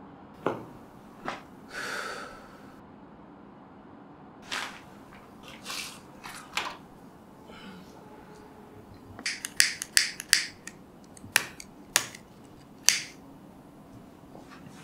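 Small objects being handled in a quiet room: a few short rustles, then, about halfway through, a run of sharp clicks, roughly nine over four seconds.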